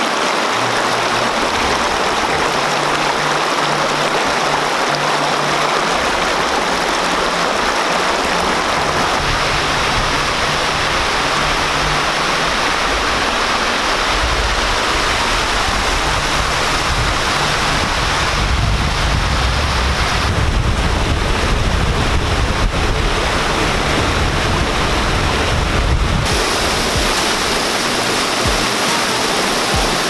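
Shallow mountain creek and small waterfall pouring over rocks: a loud, steady rush of running water.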